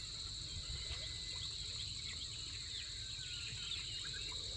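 Steady high-pitched insect chorus, a continuous shrill drone with a fine pulsing in its upper part, with scattered short chirps and a low rumble beneath.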